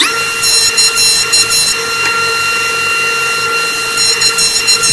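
Electric jointer-planer running with a steady high whine as a wooden bar is fed over its cutter head. A harsher shaving noise comes and goes as the blades bite into the wood.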